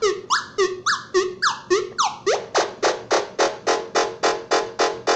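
SN76477 complex sound chip running continuously in locked mode, giving a repeating string of synthesized chirps. First come falling sweeps about three a second; about two seconds in they change to shorter rising chirps about five a second.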